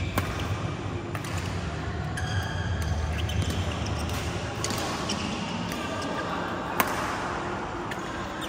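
Badminton play on indoor courts: sharp racket strikes on shuttlecocks and short squeaks of shoes on the court mat, repeating irregularly, with one loud crack about seven seconds in. A steady low hum runs underneath.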